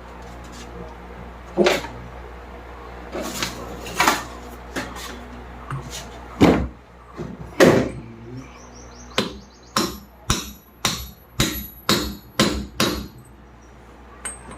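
Hammer tapping a part into a ceiling fan's aluminium body while a new bearing is being fitted. First come a few scattered blows, then a quick, even run of about eight ringing metallic taps, roughly two a second.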